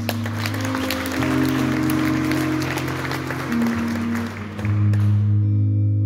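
Audience applause over a harmonium playing held, droning chords that move to new notes every second or so. The clapping dies away about five seconds in, leaving the harmonium drone.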